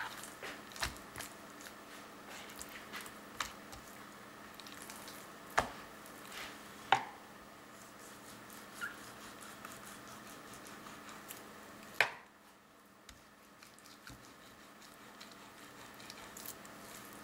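Kitchen knife cutting open a raw pork loin on a cutting board: scattered light clicks and taps of the blade against the board and soft wet handling of the meat, with three louder knocks spread through the middle.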